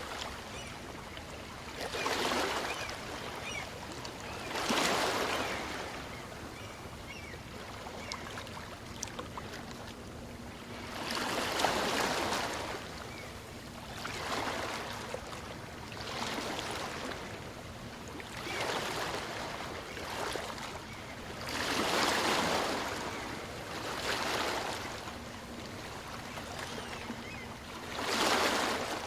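Small waves from a calm sea washing in on a beach one after another, each swelling and falling away over a second or two, about nine in all.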